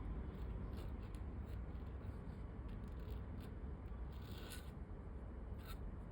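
A calligraphy pen nib scratching across paper in short, irregular strokes, with a longer stroke about four seconds in, over a steady low hum.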